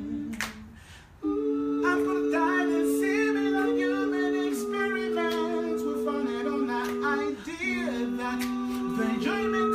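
A cappella vocal harmony: voices hold long sustained notes in two or more parts without words, with a sharp click keeping time about once a second. The voices drop away briefly just after the start and come back in about a second in.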